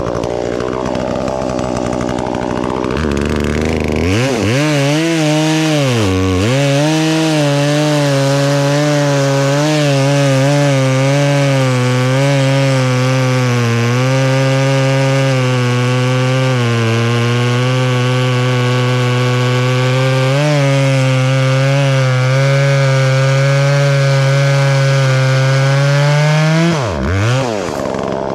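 Two-stroke gas chainsaw cutting through a maple log. The engine pulls down to a steady, laboured pitch under load for one long cut and dips briefly about six seconds in. Near the end it revs up and then drops away as the chain breaks through.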